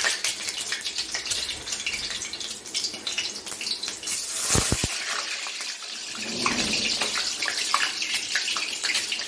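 Whole boiled eggs sizzling and spattering in hot mustard oil in an aluminium kadhai: a dense, steady crackle full of sharp little pops. A couple of low knocks sound about halfway through.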